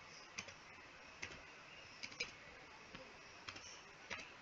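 Computer keyboard keys clicking faintly, about seven irregular keystrokes while a mobile number is typed into a web form.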